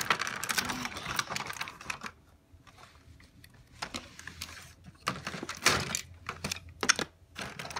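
Clear plastic packaging bags crinkling and crackling as they are handled, with a quieter pause about two seconds in, then more crinkling as a bag is cut open with scissors near the end.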